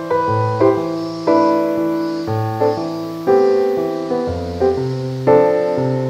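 Background piano music: slow, soft chords, a new one struck about once a second and left to fade.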